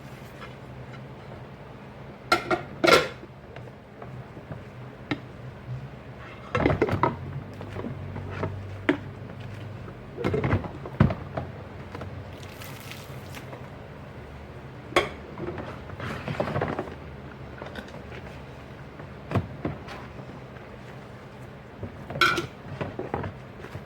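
Dishes being washed by hand: plates, glasses and cutlery clinking and knocking against each other in scattered bursts, with short quiet gaps between.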